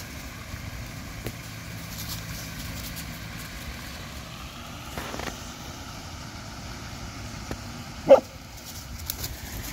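A dog barks once, short and sharp, about eight seconds in, over a steady background hiss with a few faint crackles of dry leaves.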